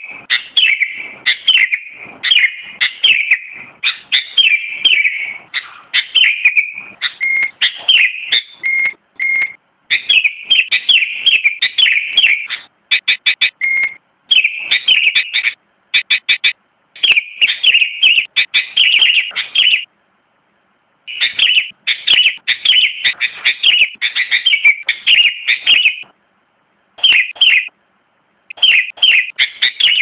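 Sooty-headed bulbul singing: loud, quick runs of short bright chirping notes, repeated phrase after phrase, with brief breaks about twenty seconds in and again near twenty-seven seconds.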